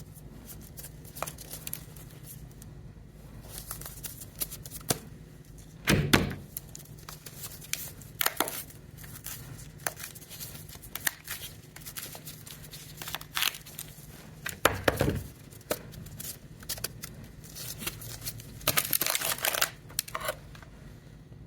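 Ice being bitten and crunched close to the microphone: irregular sharp cracks and crackles, with heavier crunches about six seconds in, near the middle and toward the end. A faint steady low hum runs underneath.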